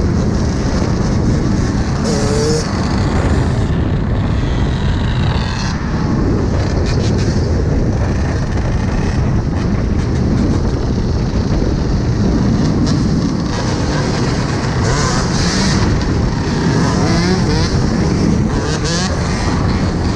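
Several dirt bikes riding in a group, engines running, with short revs rising and falling.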